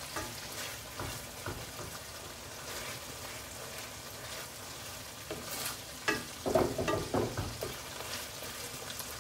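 Thick onion-tomato masala sizzling in oil in a nonstick kadai while a wooden spatula stirs and scrapes it, with a run of louder scrapes about two-thirds of the way through. The spice paste is being fried down until the oil separates.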